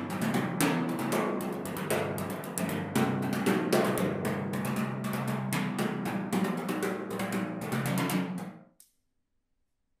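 Rutes (bundles of thin wooden rods) played in rapid strokes on timpani: a dense clatter of small wooden clicks over the ringing pitch of the drums. The playing fades and stops about nine seconds in.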